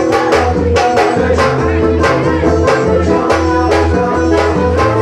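Forró music with a quick, steady beat, a pulsing bass line and held chords.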